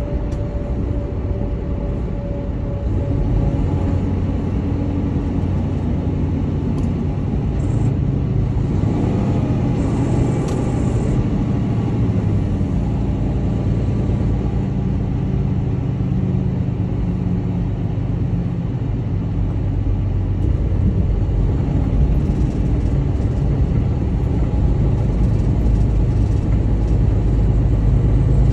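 Semi truck's diesel engine and road rumble heard from inside the cab while cruising on the highway: a steady low drone.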